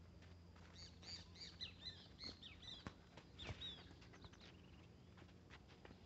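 Faint bird chirping: a quick run of short high chirps in the first half, with a few soft taps, likely footsteps on the packed dirt, over a low hum.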